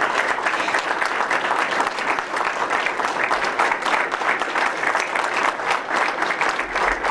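A room full of people applauding: many hands clapping steadily without a break.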